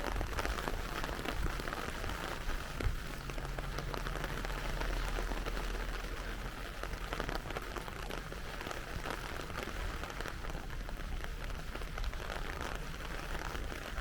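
Steady rain falling, a dense patter of drops over a low rumble.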